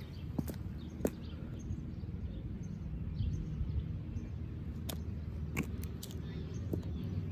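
Footsteps of leather-soled Allen Edmonds Strand cap-toe oxfords on a concrete sidewalk: sharp heel clicks, two in the first second, then a few more from about five seconds in. Behind them are a low steady outdoor rumble and faint birdsong.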